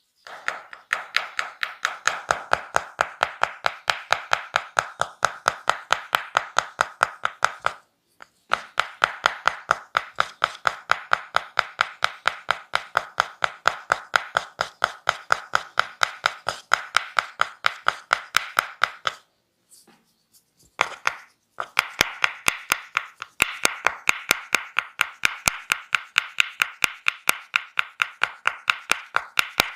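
Percussive massage strokes: a masseur's hands striking the body in a fast, steady rhythm of about four to five sharp slaps a second, with two short breaks.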